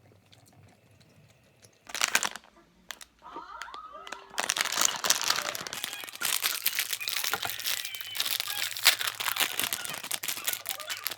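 Plastic snack packaging being crinkled and handled: a short rustle about two seconds in, then continuous crinkling from about four seconds on.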